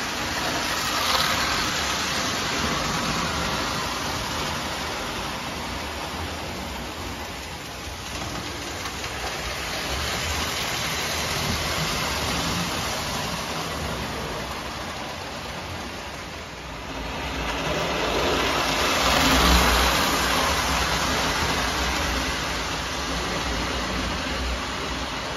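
Marx tinplate toy steam locomotive running laps on three-rail tinplate track: a steady motor whir and wheel rumble. It swells and fades as the engine goes around, loudest about three-quarters of the way through.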